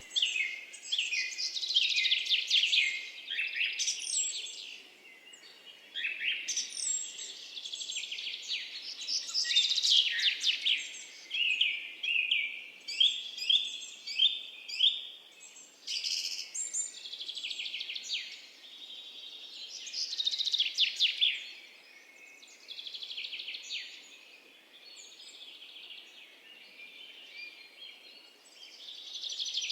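Birds calling densely and near-continuously in overlapping chirps, quick falling notes and rapid trills, louder in several bouts and quieter for a stretch after the middle.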